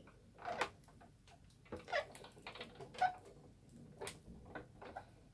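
Manual die-cutting machine being hand-cranked, its rollers drawing a metal plate sandwich through: a quiet run of irregular clicks and creaks from the crank and plates, one or two a second.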